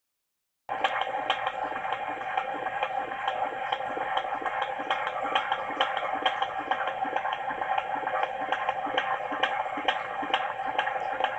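A late-term fetus's heartbeat through a handheld fetal doppler's speaker: a fast, regular pulsing beat under a constant hiss, starting abruptly a moment in.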